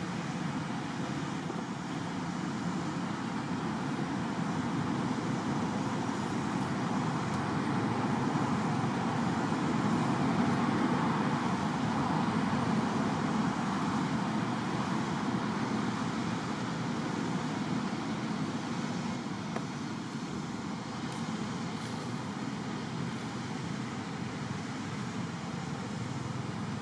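Steady outdoor background rumble and hiss, swelling a little louder midway and easing off again.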